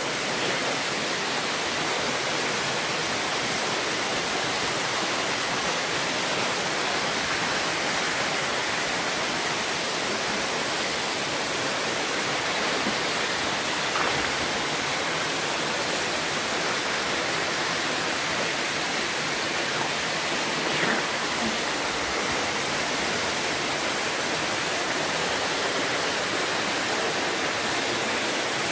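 Steady, unbroken rush of a waterfall pouring into a rock-walled river pool, heard from down in the water close by.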